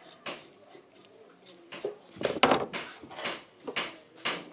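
Scissors scraping and snipping at a thin stick: a run of short scratchy strokes that come more evenly toward the end, with one louder knock and clatter a little past halfway.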